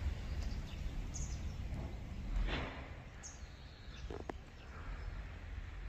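Outdoor ambience: a steady low rumble on the microphone, with a few faint, brief high chirps from small birds.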